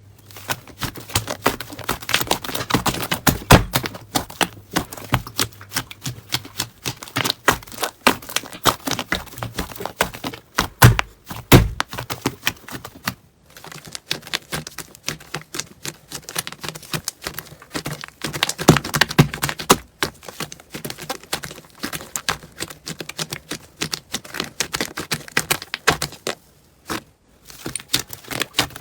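Slime being squeezed and kneaded by hand, giving a dense run of rapid crackling and popping clicks. The crackling pauses briefly twice.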